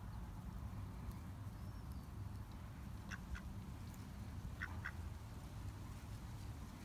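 Ducks quacking: two pairs of short quacks, the first about three seconds in and the second a second and a half later.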